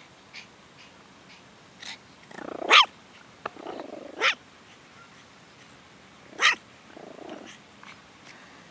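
Long-haired toy Chihuahua giving three short, high-pitched barks a second or two apart, the first the loudest, with softer rough growly sounds between them.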